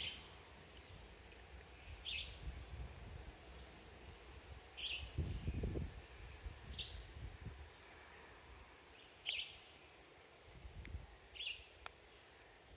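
Faint rainforest ambience: short high chirps from an animal, repeating every two to three seconds over a steady high hum, with a brief low rumble about five seconds in.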